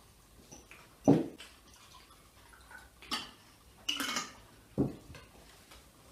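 Tableware knocking and clinking during a meal: a few separate sharp knocks, the loudest about a second in.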